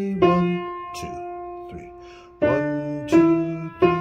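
Upright piano played with both hands in a slow beginner piece in three-four time, right hand around E above middle C and left hand around middle C. A pair of notes is struck just after the start and left to ring for about two seconds, then notes are struck about every three-quarters of a second near the end.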